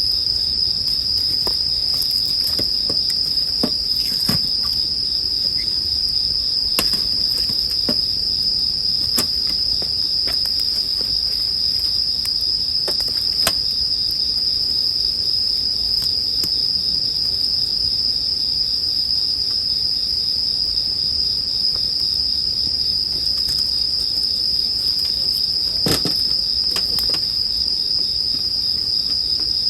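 Japanese bell crickets (suzumushi) singing in a steady, high ringing trill, over a campfire crackling with scattered sharp pops, one louder pop about 26 seconds in.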